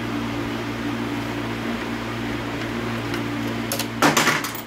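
Steady hum of a workshop fan, with a brief clatter of loose bolts being picked through near the end.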